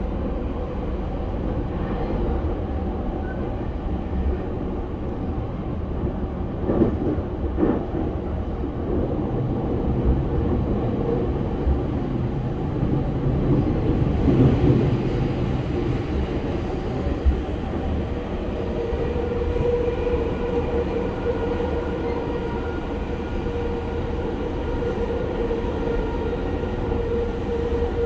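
E231 series 1000 EMU with Hitachi IGBT-VVVF control, heard from inside a motor car running at speed: steady rumble of wheels on rail with a few knocks. The train passes into a tunnel partway through, and a steady humming tone comes up in the last third.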